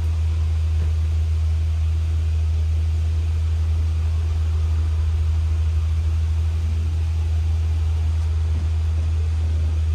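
Steady low drone of a double-decker bus in motion, heard inside on the upper deck: engine and road rumble with an even hiss above it.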